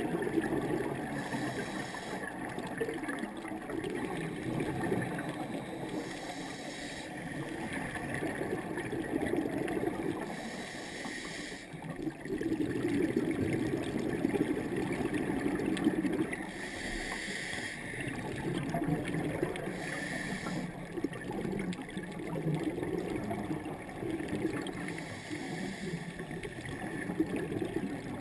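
Underwater scuba breathing: a short regulator hiss every four to six seconds, with longer swells of rumbling, gurgling exhaled bubbles between them.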